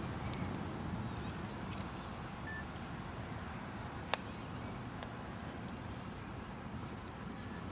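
Beach fire burning sneakers: a steady low rush with scattered sharp crackles and pops, one louder pop about four seconds in.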